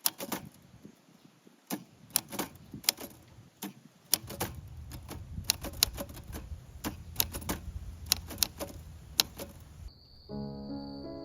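Wood fire crackling, with sharp irregular pops and snaps and a low steady rumble underneath from about four seconds in. Soft music comes in near the end.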